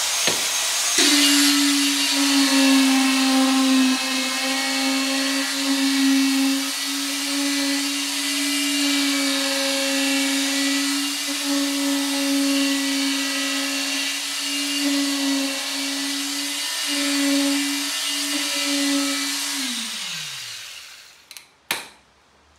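Electric pencil concrete vibrator running at a steady, high-pitched hum as its head is worked through freshly placed lightweight concrete in a mold to consolidate it. Near the end it is switched off and the pitch falls as it spins down, followed by a couple of clicks.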